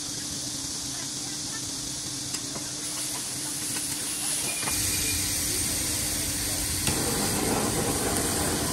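Steady sizzling hiss of food cooking on a kitchen grill over a faint steady hum. A deeper rumble joins about halfway, and the noise grows louder near the end.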